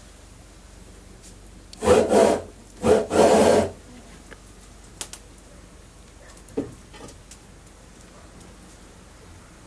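Two rough scraping strokes close together, each under a second long, like a hard object dragged over a rough surface, followed a few seconds later by a couple of light knocks.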